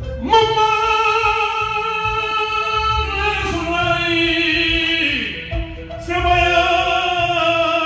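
A high male voice singing long, held notes into a microphone over the PA, in about three drawn-out phrases with a downward slide near the middle, in Mande griot style. A quiet low accompaniment pulses underneath.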